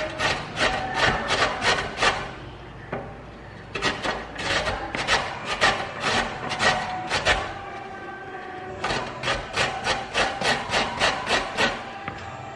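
Carrot being grated on a large stainless-steel box grater: quick rasping strokes, about five a second, in three runs with short pauses between.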